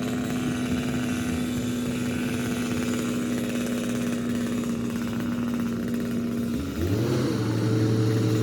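An engine running at a steady pitch, then dropping to a lower steady pitch with a brief rise and fall near the end.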